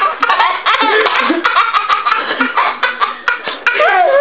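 A baby laughing in short bursts that rise and fall in pitch, with scattered sharp clicks.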